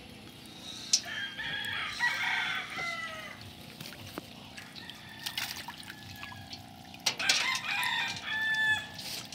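Roosters crowing more than once, with water splashing and dripping in a steel basin where a koi is moving.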